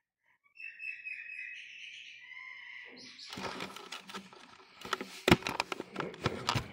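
Faint high chirping, then rustling and several sharp knocks from the phone being handled close to its microphone, the loudest knock a little past the middle.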